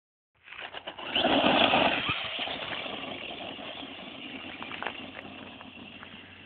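Radio-controlled buggy accelerating hard across a dirt field, its motor and tyres on the loose dirt loudest about a second in, then fading steadily as the car drives off into the distance.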